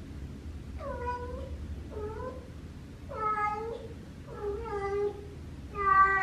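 Female cat in heat giving her mating call: five drawn-out meows about a second apart, the last one the loudest.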